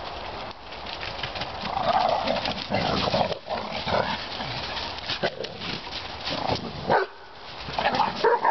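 Dogs playing close by, their paws crackling through dry fallen leaves, with a few brief dog vocalisations about two, four and eight seconds in.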